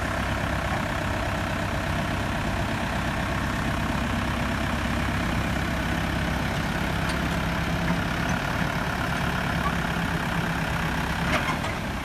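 Case 75C tractor's diesel engine running steadily, with a few light clicks near the end.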